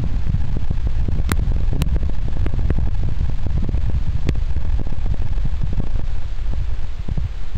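Steady, muffled low rumble of water heard through a submerged camera, with a few sharp clicks about a second, two seconds and four seconds in.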